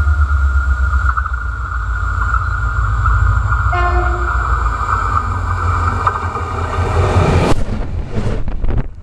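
Freight train running past close by with a heavy low rumble and a steady high-pitched tone, and a short horn toot about four seconds in. Near the end comes a loud burst of noise and knocks of the microphone being handled.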